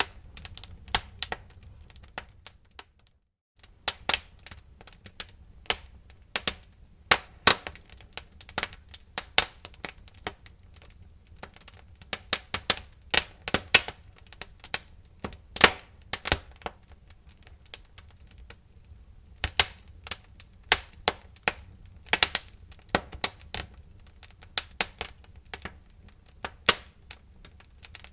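Wood fire crackling: irregular sharp pops and snaps over a faint low rumble, with a brief drop to silence about three seconds in.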